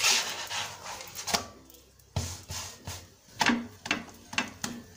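Malwi flatbread sizzling on a hot oiled pan for about a second, followed by several sharp taps and knocks as the breads are pressed and handled on the pan.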